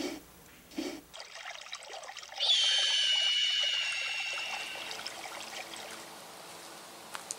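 Water trickling and pouring. Two soft thumps come near the start, and a loud high tone sets in about two and a half seconds in, dips a little in pitch and slowly fades.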